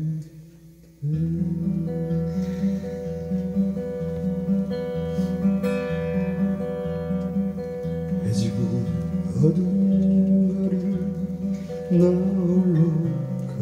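A man singing with his own acoustic guitar. Near the start there is a pause of about a second, then guitar and voice come back in with long held notes.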